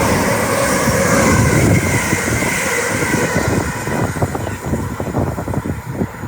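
A train running past on the main line, its rushing rail noise and faint motor whine holding for about three seconds, then fading away as it recedes, leaving uneven low rumbling gusts.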